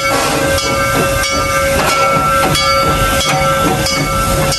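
Amusement-park train passing close by: the continuous rumble and noise of the cars going past, with irregular clicks from the wheels and a steady high tone held under it.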